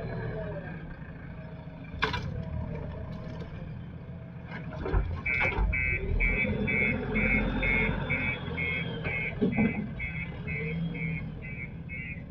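A JCB backhoe loader's diesel engine runs under a steady low rumble, and about five seconds in its reversing alarm starts beeping, about three beeps a second. A sharp knock comes about two seconds in, with a few more knocks later.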